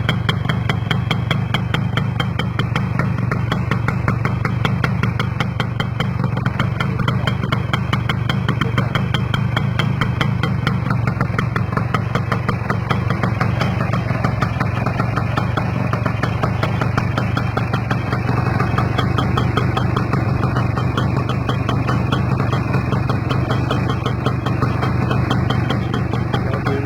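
Kawasaki GTO motorcycle's two-stroke engine idling steadily.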